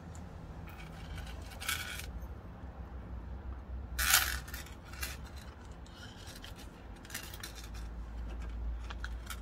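Handling of a leather pocket watch pouch and its metal chain: small metal clinks and leather rubbing, with three short scraping rustles, the loudest about four seconds in.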